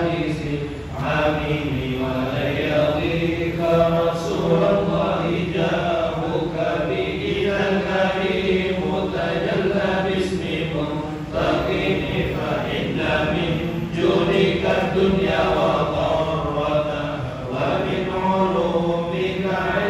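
A congregation of voices chanting a devotional Arabic chant together, one continuous sustained chant with no pauses.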